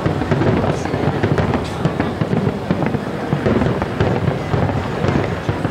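Aerial firework shells bursting in quick succession: many overlapping bangs and crackles merging into a steady, loud rumble.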